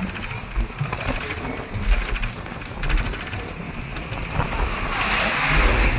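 Vehicle crossing a river bridge: a low rumble with rapid mechanical clicking and rattling, and a rush of wind noise near the end.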